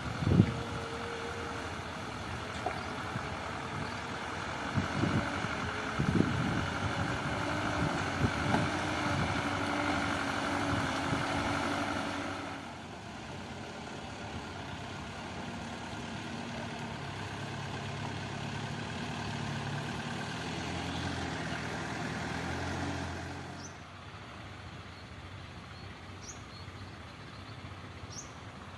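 Heavy diesel road-construction machinery running, with a few knocks in the first several seconds. The engine sound drops in level about halfway through and again near the end.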